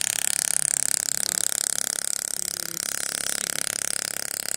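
A 1000 W fiber laser welding machine welding: a steady, high hiss with a fast flutter.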